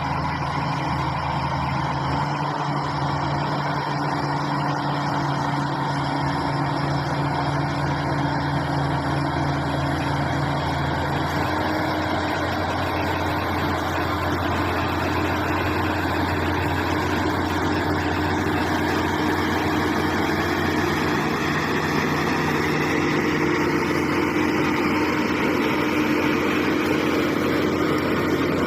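Shantui SD16 bulldozer's diesel engine running steadily, its pitch shifting slightly about twelve seconds in.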